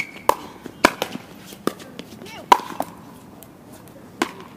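Pickleball rally: paddles hitting a hollow plastic pickleball, heard as about seven sharp pops in irregular succession, the loudest with a short ring.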